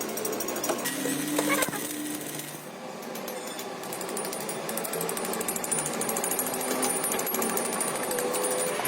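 A workshop power tool or machine running with a rapid, rattling buzz.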